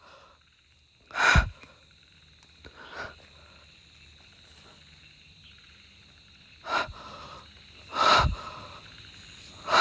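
A man breathing hard, about five loud, noisy breaths spread over the stretch with quiet between them, over a faint steady high insect drone.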